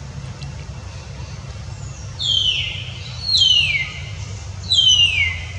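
Newborn macaque crying: three high squeals a second or so apart, each sliding down in pitch, over a steady low rumble.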